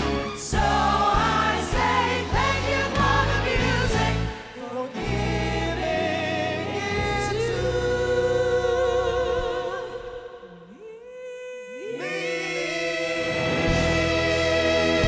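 A group of six singers in close harmony over a live pop band. About ten seconds in, the band drops away and the voices glide up into a quiet held chord, then the full band swells back in.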